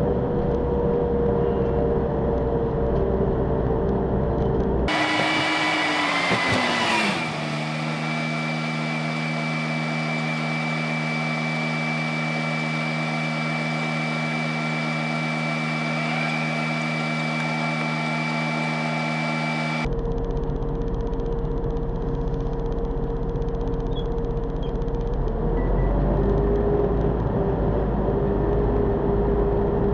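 Bus running, heard from inside. A few seconds in the sound changes and the engine's pitch drops, then holds steady until near the end, when the earlier hum returns.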